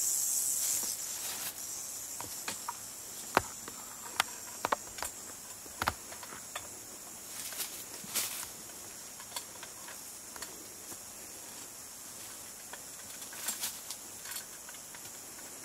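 Scattered clicks, taps and rustles of snake tongs and a plastic snake tube being worked among rocks and brush. A faint, steady high-pitched buzz sits under them, clearer in the first second and again near the end.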